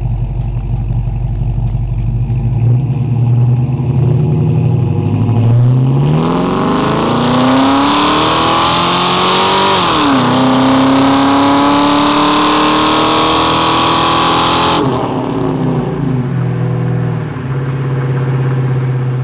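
1969 Oldsmobile 442's fuel-injected LQ4 6.0-litre V8 running at a steady cruise, then accelerating hard from about five seconds in. The engine note climbs, drops at an upshift of the 4L60E automatic about ten seconds in, climbs again in the next gear, and falls away when the throttle is lifted about fifteen seconds in, settling back to a steady cruise.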